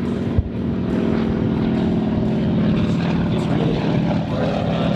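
Propeller airplane's piston engine droning steadily overhead, making its diving pass at the start of a race. A brief thump sounds about half a second in.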